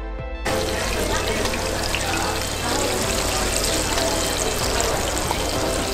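Mung bean pancakes (bindaetteok) sizzling and crackling as they shallow-fry in a thick layer of hot oil on a flat griddle, starting abruptly about half a second in. Background music plays underneath.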